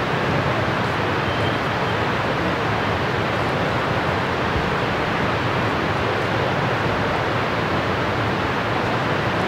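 Steady, even rushing of river water flowing through the gorge below.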